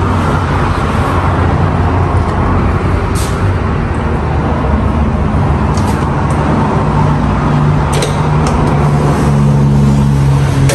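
Loud, steady low drone and hum of running machinery, with a few sharp clicks.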